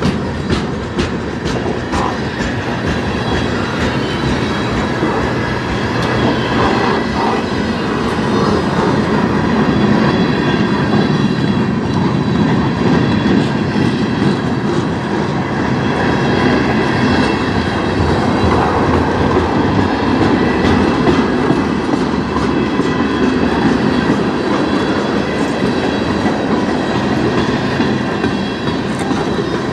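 Freight train cars, boxcars and lumber-loaded centerbeam flatcars, rolling past close by: a steady rumble of steel wheels on rail. Clicks from the wheels passing over rail joints are most distinct in the first few seconds.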